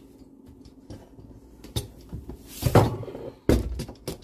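Kitchen handling noises: scattered clicks and knocks, a louder rustling clatter about two and a half seconds in, then a sudden thump about a second later.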